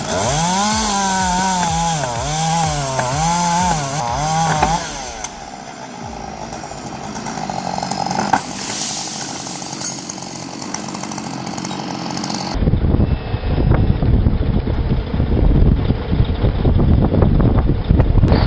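Chainsaw running, its pitch swinging up and down in a steady rhythm for about five seconds, then a noisier stretch of running. About two-thirds of the way through, the sound cuts abruptly to a heavy low rumble.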